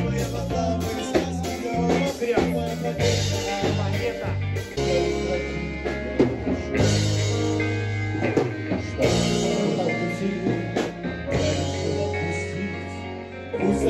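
A band playing live in a rehearsal room: guitar, bass and drums carry an instrumental stretch of a pop-rock song, with held bass notes that change every second or so under the chords.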